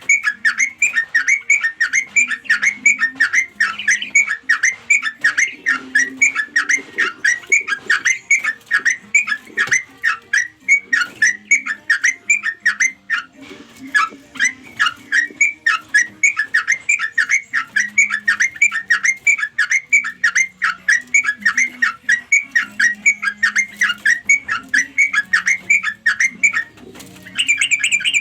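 Yellow-vented bulbul (trucuk) calling: a long chattering run of short notes, about three a second, without pause. This is the call that draws other bulbuls in. Near the end a louder, denser burst of calls begins.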